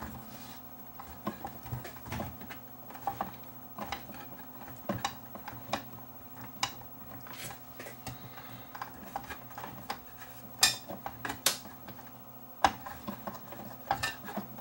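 A long screwdriver working on the screws of a CRT monitor's front control board: scattered small metallic clicks, scrapes and taps, with two sharper clicks about two-thirds of the way through, over a faint steady low hum.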